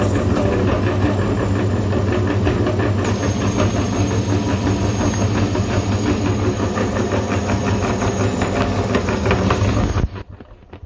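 Electric meat grinder running steadily under load, a loud, even motor hum with a fast rattling pulse, cutting out about ten seconds in.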